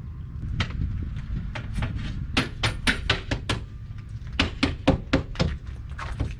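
Aluminum window division bar being tapped into its channel: irregular sharp taps, several quick runs of them in the second half, over a steady low rumble.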